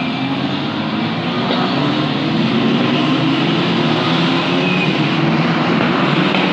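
Formula 4 single-seater race cars running on the circuit, several engines sounding at once in an overlapping drone whose pitches shift up and down, growing louder about two seconds in.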